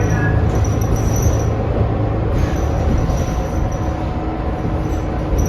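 Diesel New Flyer XD40 transit bus heard from inside the cabin while under way: a loud, steady low drone from the engine and drivetrain, with a high whine that comes and goes. The rider calls this bus's sound weird and insane, with no known cause.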